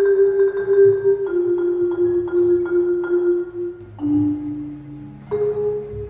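Background music: a slow melody of a few long held notes, changing every one to three seconds, with light regular strikes over it.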